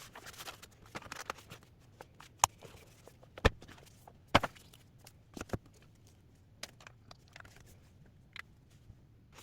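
Scattered light clicks and taps, with a few sharper knocks between about two and six seconds in.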